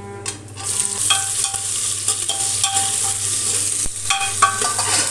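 Sliced onions and green chillies dropped into hot oil in an aluminium pressure cooker. A loud, steady sizzle starts about half a second in, while a metal slotted spoon stirs and scrapes against the pan in short, repeated scrapes.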